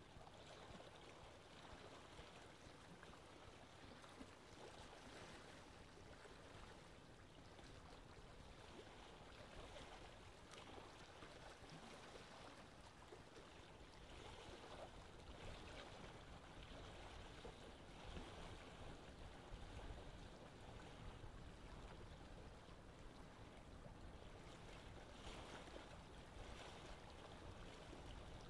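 Aquarium water trickling faintly and steadily as it circulates in the tank.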